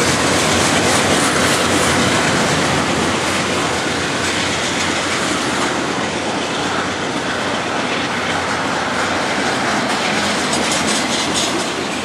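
Norfolk Southern double-stack intermodal train's container cars rolling past on steel rails: a steady, loud rumble of wheels on track.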